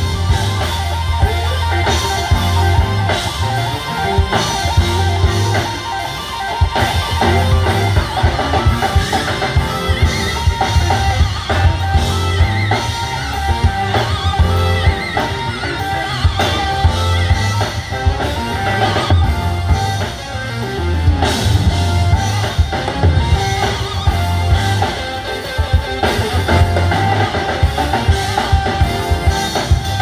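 Live band playing: keyboards, electric guitar, electric bass and drum kit, with a steady, repeating bass line under regular drum hits.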